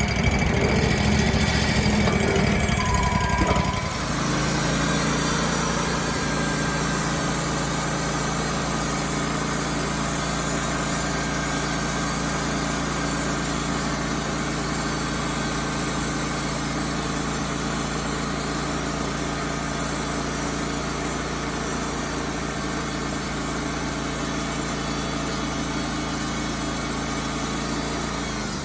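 Wood-Mizer LT35HD sawmill's engine, rougher and louder for the first few seconds with two short beeps, then running steadily from about four seconds in. Near the end it begins to die away, starved because the fuel valve had been left shut off.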